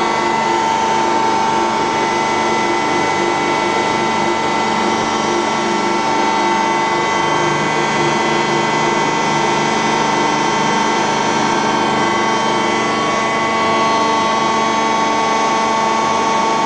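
Large metal-working lathe running steadily, a constant loud machine noise with a steady whine held at several pitches.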